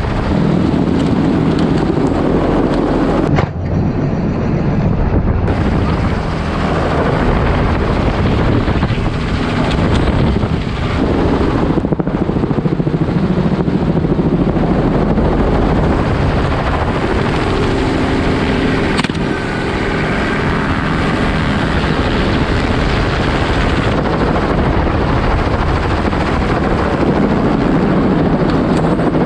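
Helicopter in low flight heard from its open side door: loud, steady rotor and engine noise.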